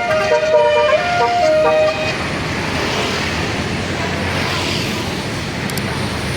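Bus telolet basuri horn playing a tune of stepped, held notes, several at once, that stops about two seconds in. The even rush of passing bus and road traffic follows.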